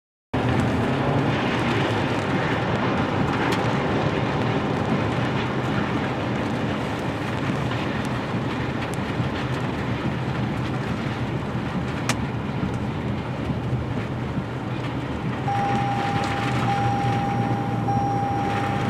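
Loud, steady rushing roar of tornado wind over the microphone, with a low rumble underneath. Near the end, a steady high-pitched tone comes in and breaks off briefly a couple of times.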